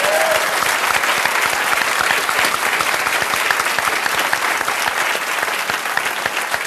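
Studio audience applauding, a dense steady clatter of clapping.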